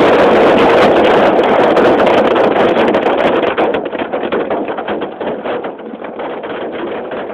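Hail and rain drumming on a vehicle's roof and windshield, a loud dense clatter of impacts heard from inside the cab, easing off about four seconds in.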